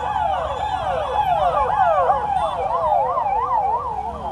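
Ambulance siren sounding close by, its pitch sweeping up and down in long wails that speed up to a fast yelp about halfway through, then ease off near the end. Steady road and traffic rumble underneath.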